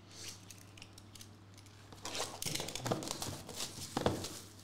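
Plastic wrap crinkling and cardboard rustling as a sealed trading card box is handled and opened, with a couple of sharp taps, the loudest near the end.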